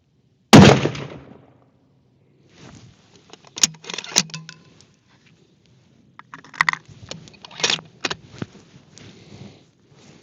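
A single shot from a Ruger Precision Rifle in .308 Winchester about half a second in, the loudest sound, with a short decaying tail. Then several bursts of sharp metallic clicks and clacks as the rifle's bolt is worked to eject the case and chamber the next round.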